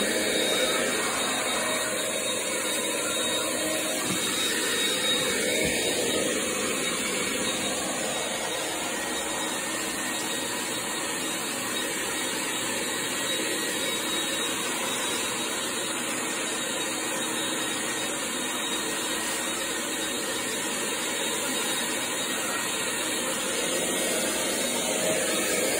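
Heavy-duty wet/dry vacuum motor running steadily as the vac sucks up floor-stripper slurry from vinyl composition tile.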